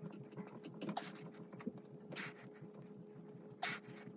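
Short, sharp breaths from a person doing push-ups on carpet, about three of them a little over a second apart, over a faint steady hum.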